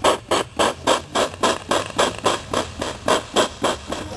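Rhythmic scraping of a hand tool worked back and forth on metal, about four strokes a second.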